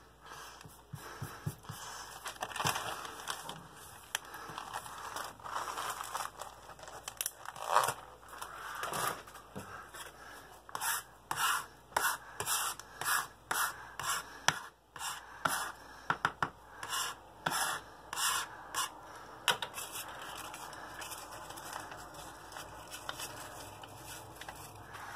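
Close handling noises: a long run of short scrapes and rustles, coming at about two a second through the middle stretch.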